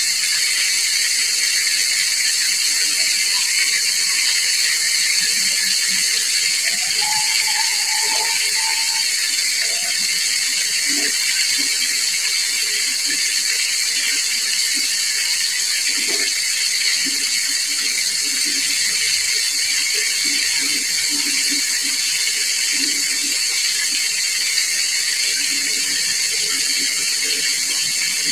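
Whole chicken deep-frying in oil: a steady sizzle of bubbling hot oil.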